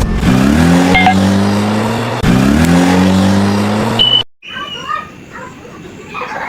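Car engine revving, its pitch climbing and then holding twice in a row, like a car pulling away through a gear change; it cuts off suddenly about four seconds in, leaving a much quieter sound.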